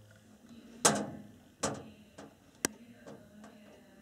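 A few separate sharp knocks and clatters, roughly a second apart, the loudest a little under a second in.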